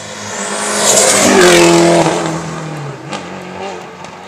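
Hill-climb race car passing close at speed: its engine grows louder, is loudest about one to two seconds in, then drops in pitch and fades as the car goes by and on up the road.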